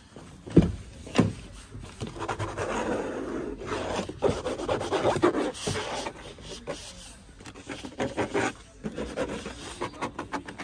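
A hand knocking twice on a Dacia Sandero's door, then rubbing and scraping along the plastic interior door panel and trim, with a run of quick taps near the end. The trim is being tested for how solid its build quality feels.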